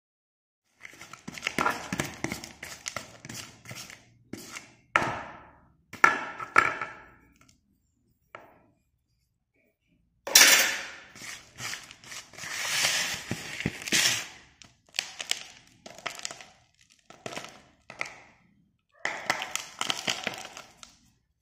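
Broken slate-pencil pieces clattering and crunching in a plastic tub as they are tipped in and stirred, in irregular bursts with short pauses. The loudest burst comes about ten seconds in.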